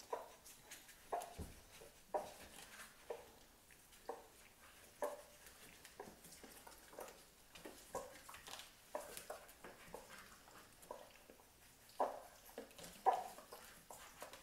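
Newborn puppies nursing from their mother, making short soft squeaks and suckling noises about once a second.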